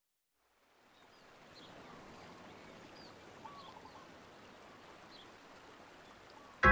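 Faint outdoor ambience fading in: a steady hiss with scattered short bird chirps. Music starts suddenly and loudly right at the end.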